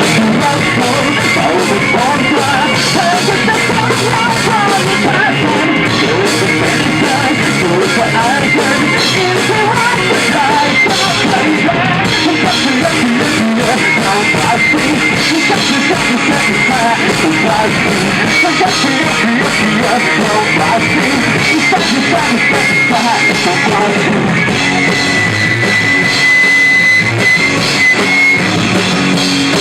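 A rock band playing live through its full line-up, with drum kit and electric guitar, loud and continuous; a long held high note sounds near the end.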